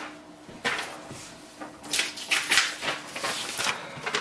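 Sheets of paper being handled at the printer, rustling irregularly with small clicks, busiest from about two seconds in.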